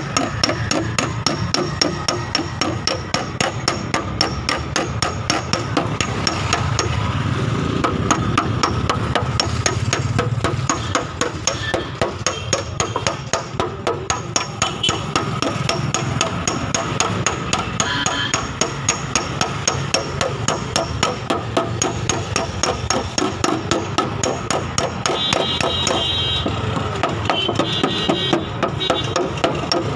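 Steady rapid hammer tapping on the sheet-steel quarter panel of a Hyundai i20, about three to four light knocks a second, as a dry dent is worked out without damaging the paint.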